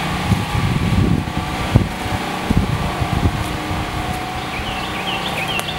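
Steady hum of a generator running next door. Wind buffets the microphone with uneven gusts for the first few seconds. Near the end a bird gives a run of short, quick chirps.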